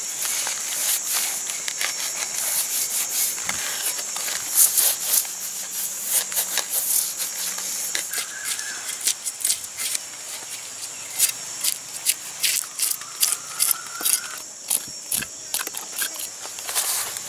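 Rapid, irregular scraping as scales are scraped off an ash-coated fish with a large knife on a wooden board, over a steady high-pitched hiss.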